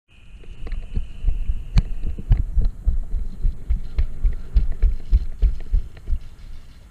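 Rapid, irregular low thumps and knocks, about three a second, with a few sharper clicks, as a head-mounted camera's microphone is bumped and rubbed. A steady high tone sounds for about the first two seconds, then stops.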